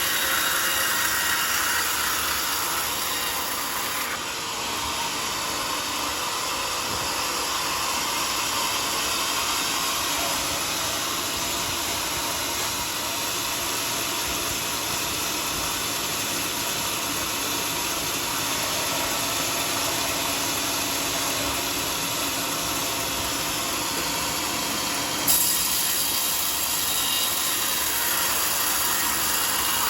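Bandsaw sawmill running, a steady even noise. Its sound changes abruptly about four seconds in and again at about twenty-five seconds, with a brief louder knock at the second change.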